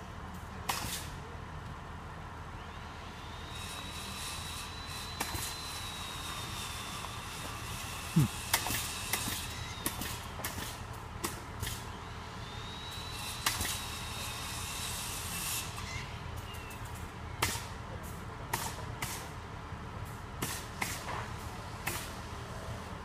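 Truck-mounted crane's diesel engine running steadily, with scattered sharp knocks and clicks from the work site; the loudest knock comes about eight seconds in. Twice a high whine rises, holds for about three seconds and falls away.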